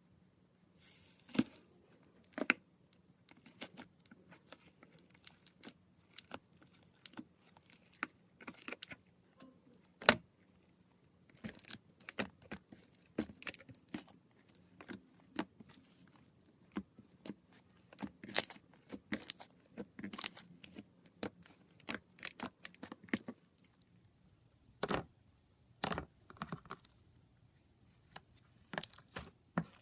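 Slime being squeezed and poked by hand, making irregular short sharp clicks and pops, a few a second, with a brief lull near the end.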